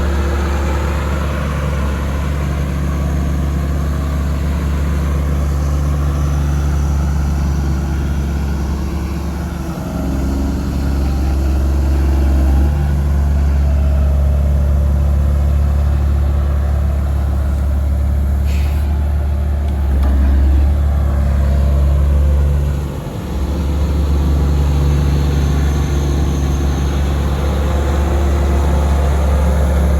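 Cat 345BL excavator's diesel engine running steadily with a deep hum, its load rising and falling a few times, with brief dips about ten seconds in and again about three-quarters of the way through.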